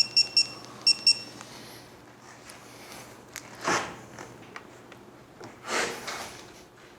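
Torque wrench beeping rapidly in short high pips as the handlebar riser bolt reaches the set 40 foot-pounds, the beeping stopping about a second in. Two brief rustles follow, near the middle and later on.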